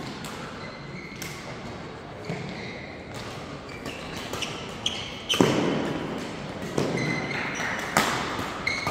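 Badminton rackets striking a shuttlecock in a doubles rally, sharp smacks in a reverberant hall about once a second from about five seconds in, mixed with short squeaks of shoes on the court floor. Before that, fainter hits from play on other courts.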